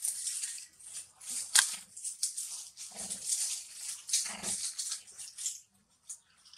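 Long-tailed macaques making short, high-pitched calls in repeated bursts, with a sharp click about a second and a half in.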